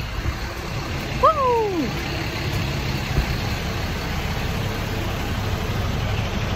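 Semi truck's diesel engine idling steadily, heard from inside the cab. About a second in, a short falling vocal sound, like a sigh or exclamation, sits over the engine.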